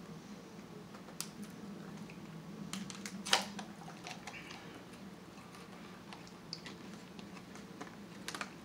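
Small clicks and taps from a plastic water bottle being drunk from and handled, with one sharper knock about three seconds in and a few quick clicks near the end, over a low steady hum.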